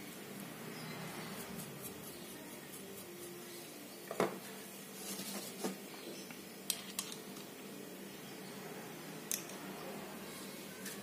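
A fishing reel being wiped and handled: a few light clicks and knocks with a brief rubbing sound, over a steady low hum.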